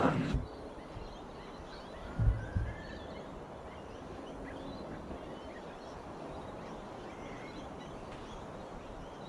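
Quiet outdoor background with a few faint bird chirps and a dull thud about two seconds in.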